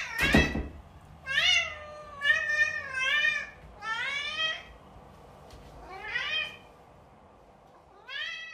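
Domestic cat meowing about six times, the calls coming roughly a second apart with a longer pause near the middle, several rising in pitch. A brief noise comes at the very start.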